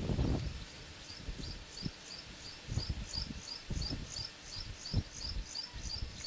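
A small creature chirping in a fast, even series of short high chirps, about four a second, starting a little over a second in. Several low rumbling bursts come in between.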